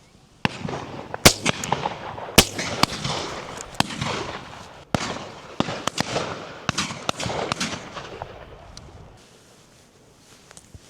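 Shotguns firing again and again along a line of guns at high driven pheasants. About a dozen sharp shots echo out over several seconds, two very loud ones early on, then die away.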